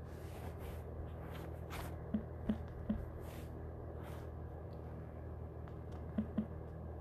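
Soft fingertip taps on a phone touchscreen over a steady low hum, three in quick succession about two seconds in and two more near the end.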